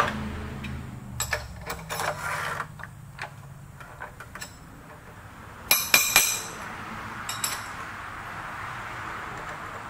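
Steel tools and parts clinking and knocking against each other on a milling machine's vise and table as they are handled. There are a few light clicks about a second or two in, then the loudest run of sharp metallic clinks about six seconds in, with a steady faint hiss after it.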